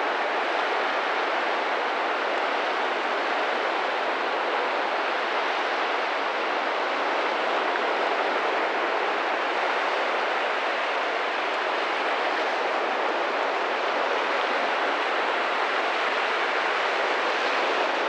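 Sea surf breaking and washing up a sandy beach, heard as a steady rushing hiss of waves.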